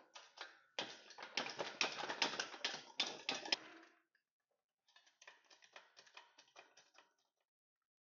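Steel engine crane rattling and clattering as it is rolled on its caster wheels across a concrete floor, a dense run of rapid clicks for about three seconds, followed by lighter scattered clatter.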